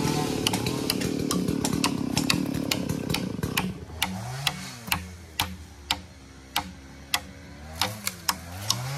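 Stihl MS440 two-stroke chainsaw running at high revs, dropping to idle about three and a half seconds in and blipped twice after that. Over it, a hammer taps sharply on a felled log, about one or two strikes a second.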